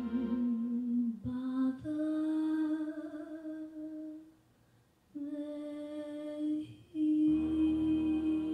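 A slow, wordless melody of long, steady held notes, with a pause of about a second roughly halfway through before the notes resume.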